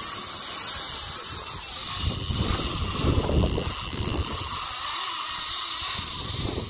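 Steady hiss of sea wind and surf, with low irregular rumbles of wind buffeting the microphone.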